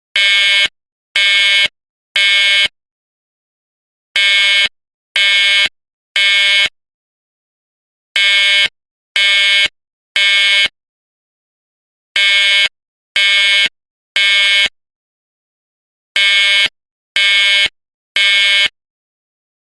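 Edwards 792-7A-006 fire alarm horn sounding in the Code-3 temporal pattern: three half-second blasts, a pause of about a second and a half, repeating every four seconds, five rounds in all. This is the standard fire evacuation signal.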